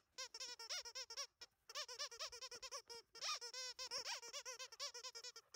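Squeaker in a plush dog toy squeaking over and over as a Labrador puppy bites and chews it. The squeaks come in quick runs, with a brief pause about a second and a half in.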